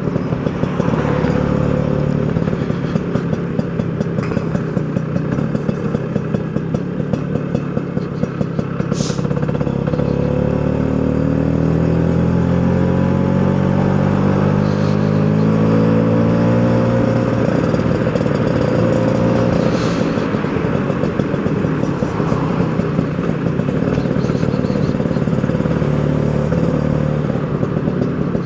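Two-stroke scooter engine running while riding. Its pitch climbs steadily about a third of the way in as it speeds up, then holds steady.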